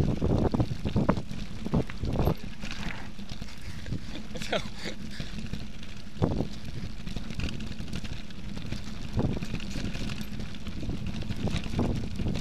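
Wind rumbling on a mountain bike's action-camera microphone as the bike rides over a rough gravel trail, with scattered knocks and rattles from the bike over the stones, the sharpest about six seconds in.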